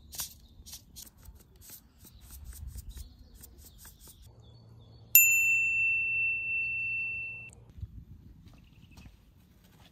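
A single high, bell-like chime, sounding suddenly about five seconds in and ringing for about two and a half seconds as it fades. Before it come a few light ticks and taps.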